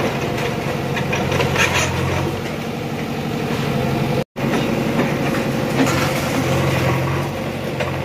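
JCB backhoe loader's diesel engine running steadily while its bucket crunches and scrapes through broken concrete slab and brick rubble. The sound cuts out for a moment about four seconds in.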